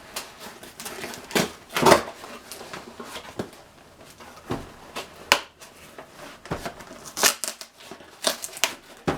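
Cardboard box and packing rustling, scraping and knocking as a snug-fitting model train car is worked out of its box, in irregular bursts.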